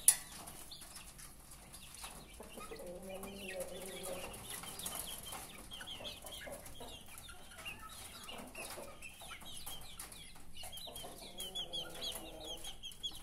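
Caged domestic chickens clucking, with drawn-out calls about three seconds in and again near the end, over scattered short high chirps. A sharp click comes right at the start.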